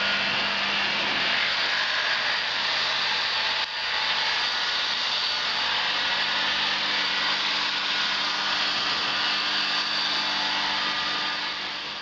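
Steady hiss of a running power tool, with a faint low hum under it.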